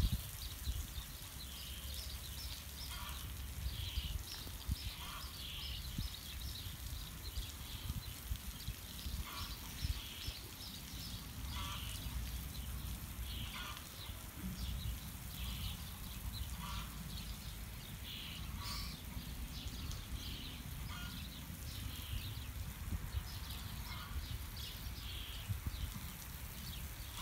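Small birds chirping in short high calls every second or two, over a steady low rumble of wind on the microphone.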